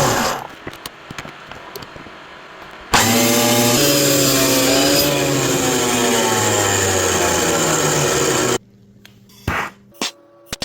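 An electric power tool working wood. It starts suddenly about three seconds in, runs loudly with its motor pitch wavering under load, and stops abruptly well before the end. Before it there are a few light clicks and knocks.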